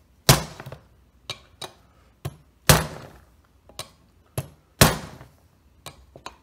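Mallet blows driving a brass throttle-shaft bushing into the freshly reamed bore of a Holley carburetor's aluminum base plate. Three heavy strikes about two seconds apart, with lighter taps between them.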